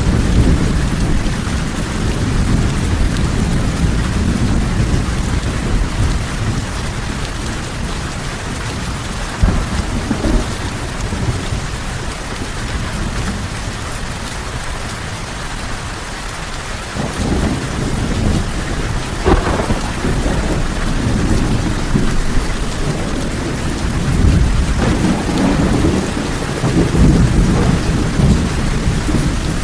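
Steady rain with rolling thunder rumbling underneath. The rumble eases around the middle and builds again in the second half, with a sharper crack about two-thirds through.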